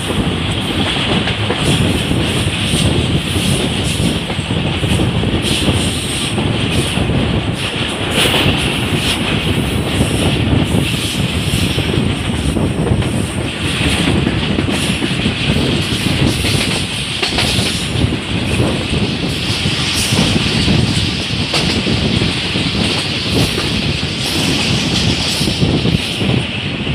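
A train running at speed, heard from aboard: a steady heavy rumble of wheels on rails with a hiss of rushing air and many small irregular clicks and rattles.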